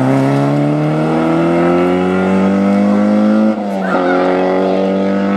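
Peugeot 106 rally car's engine at full throttle, its pitch climbing steadily as it accelerates away out of a bend. About three and a half seconds in, the pitch drops sharply at an upshift and the engine pulls on in the next gear.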